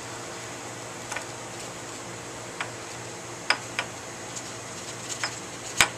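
Aluminium foil cap on a glass flask crinkling in a handful of scattered sharp clicks as it is worked loose, the loudest one near the end, over a steady faint hum.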